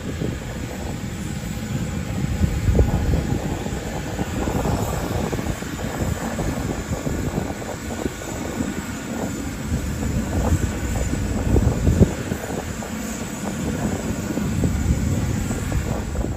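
Boeing 747 Dreamlifter's four turbofan engines at takeoff power: a loud, deep, rough rumble as the jet rolls, lifts off and climbs away. The rumble swells and eases as it passes.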